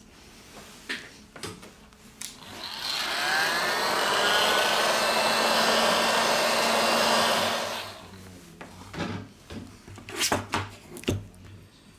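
A small electric air blower runs for about five seconds with a steady rush of air. It spins up with a rising whine about two and a half seconds in and cuts off near the end. Light clicks and taps of tools come before and after.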